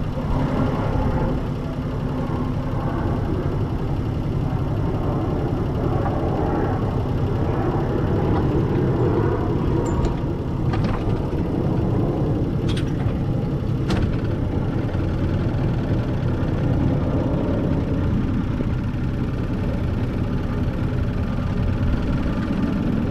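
Hunter 36 sailboat's inboard diesel engine running steadily at idle, with a few sharp clicks about halfway through.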